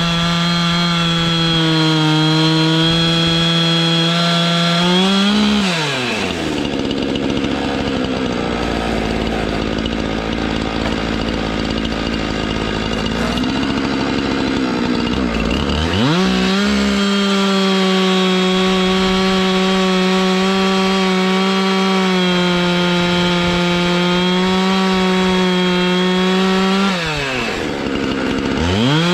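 Chainsaw milling boards from a log, running at high, steady revs. It drops to idle about six seconds in, revs back up some ten seconds later, and dips briefly near the end.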